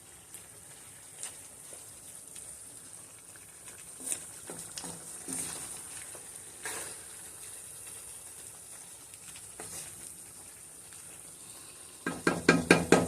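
Cubed beef cooking in its juices in a pan on medium-high heat, with a steady sizzle and a utensil clicking against the pan now and then. Near the end comes a quick run of loud ringing metal knocks.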